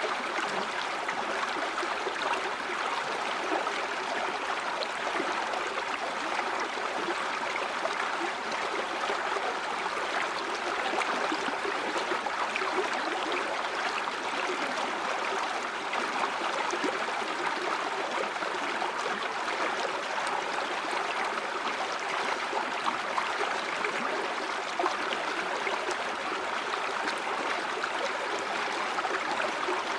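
A river or stream flowing steadily over rocks, a continuous rushing with fine gurgling and babbling detail.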